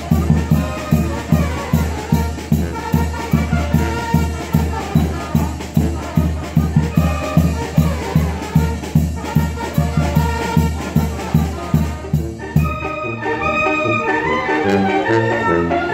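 Mexican brass band playing: brass over a steady pulsing beat and low bass. About twelve and a half seconds in, the beat drops out and the brass carries the melody alone.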